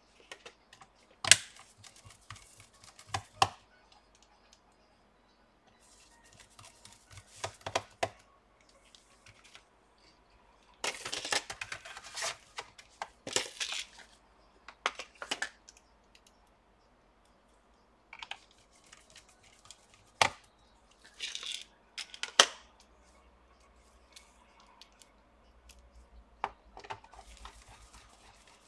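Plastic bottom cover of a Dell Inspiron 15 3580 laptop being pressed back onto the chassis. Its clips catch with scattered sharp snaps and clicks, between stretches of rubbing and rustling from gloved hands working along the cover, with a longer scraping stretch around the middle.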